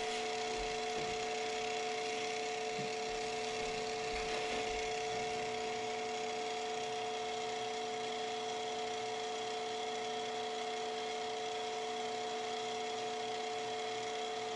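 Stroboconn strobe tuner running: its A440 reference pitch sings as a steady tone, with a fainter higher tone, over the low hum of its drive motor and gearbox. A few soft knocks from handling the motor come in the first few seconds.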